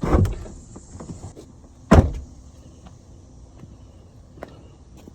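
Two heavy thumps about two seconds apart, the first with a longer low tail, like a car door or panel being shut.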